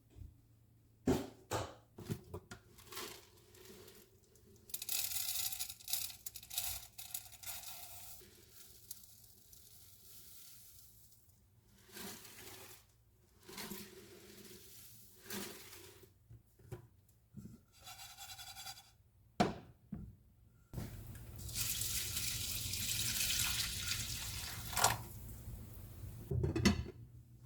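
Water running from a kitchen tap in two spells, a few seconds each, with clinks and knocks of things being handled between them.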